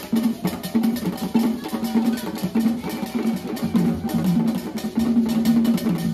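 Live group of hand drums playing a fast, dense rhythm, with rapid strokes over low drum tones that switch back and forth between two pitches.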